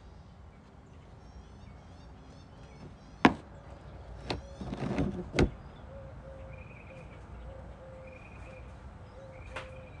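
Faint birdsong: a quick series of high chirps in the first three seconds, then short repeated calls. About three seconds in, three sharp knocks follow over about two seconds, the first the loudest, with a rustle between the last two.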